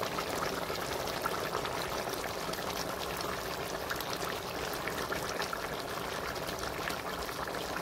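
Chicken and potato curry boiling in a large black iron wok, a steady bubbling and sizzling with fine crackles.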